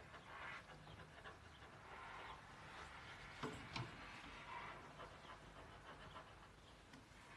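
Near silence with the faint scratching of felt-tip pens writing on paper in short strokes, and two light knocks about three and a half seconds in.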